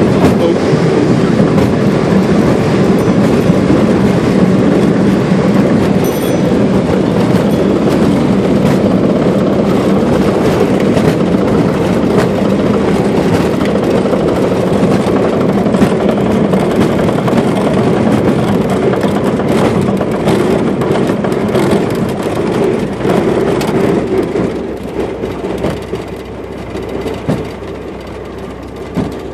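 Cockpit noise of a light aircraft's engine and propeller running while it rolls and taxis on a grass strip, with a steady hum and a rough rumble and rattle from the wheels over the grass. The noise drops off about 24 seconds in as the aircraft slows.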